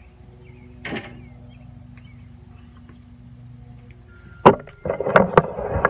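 Camera being picked up and handled: sharp knocks and clicks with rubbing against the microphone, starting about four and a half seconds in and loudest there. Before that, a low steady hum and one short rustle about a second in.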